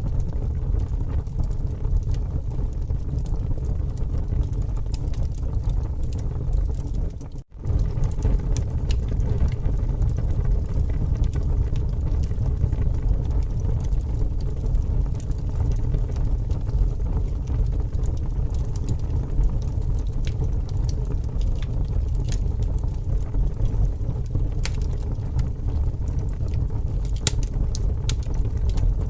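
Bonfire crackling, with scattered sharp pops and snaps over a steady low rumble; the pops come more often near the end. The sound drops out for a split second about seven seconds in.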